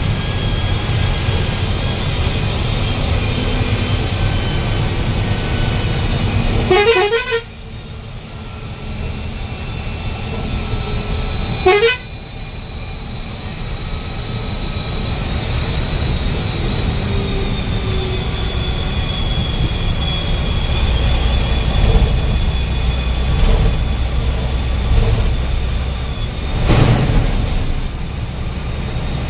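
Road vehicle running, a steady low rumble of engine and road noise, with short horn toots about 7 and 12 seconds in.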